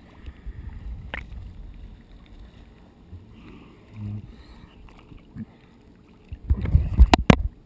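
Sea water sloshing and lapping against a camera held at the waterline. Near the end comes a louder burst of splashing with two sharp knocks.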